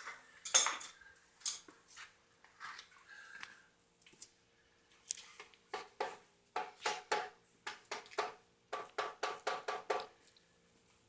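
Light metal clinks and knocks as casting gear is handled, scattered at first, then in quick runs of several a second in the second half. A faint steady hum underneath.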